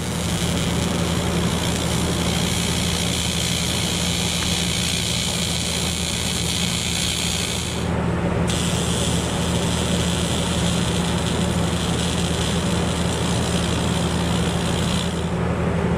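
TIG welding arc on an aluminium bar: a steady electric buzz with a high hiss. The arc breaks off briefly about eight seconds in, restarts, and stops about a second before the end, while the welding machine's low hum carries on.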